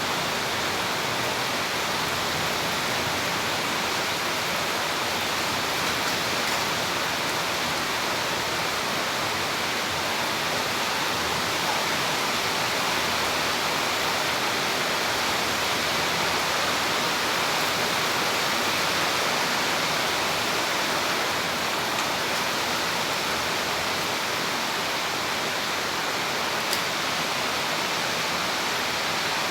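Heavy tropical downpour: a dense, steady hiss of rain that keeps an even level throughout.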